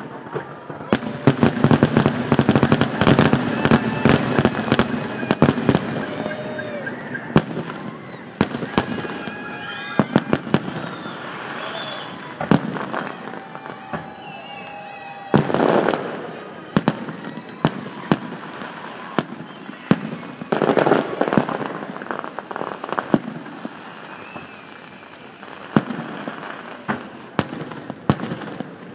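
Fireworks display: shells bursting with bangs and crackling. A dense flurry of rapid pops comes in the first few seconds, then scattered bangs, with further clusters about halfway through and about two-thirds of the way through.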